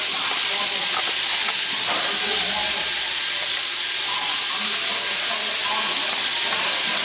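Steady loud hiss, with faint voices in the background.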